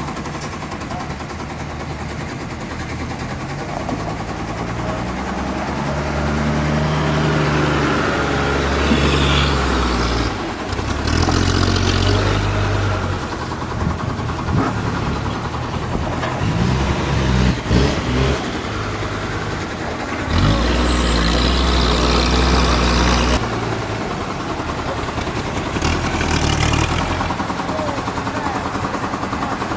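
Heavy machinery engines running and revving, the sound changing abruptly several times.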